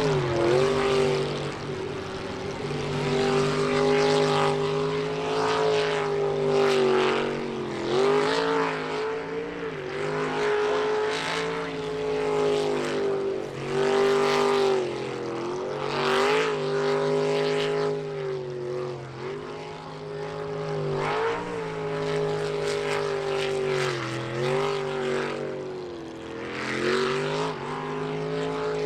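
Jet sprint boat engine at full throttle. It climbs sharply in pitch at the launch, then holds high revs, dipping briefly and picking back up again and again as the boat works through the course's bends.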